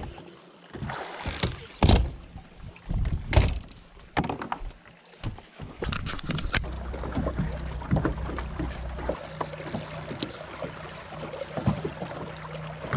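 A few sharp knocks and thumps of gear on a bass boat's deck, then from about halfway a steady low hum of the boat's Garmin bow-mounted trolling motor running.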